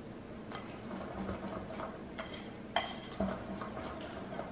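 Wire whisk stirring a thick mixture of mashed banana, sugar and softened butter in a glass bowl: a soft repeated scraping, with two light clinks of the whisk against the glass about three seconds in.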